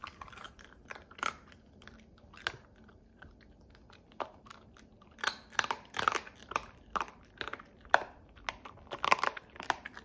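A small dog crunching and chewing pieces of dry, uncooked pasta. The sharp crunches come a few at a time at first, then quicker and louder from about five seconds in.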